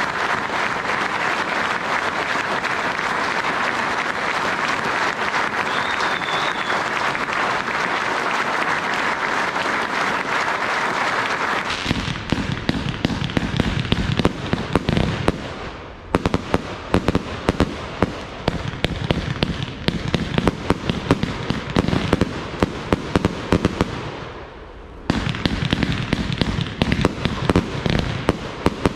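A large crowd applauding steadily, then, about twelve seconds in, fireworks going off in a dense run of rapid crackles and pops that twice breaks off briefly.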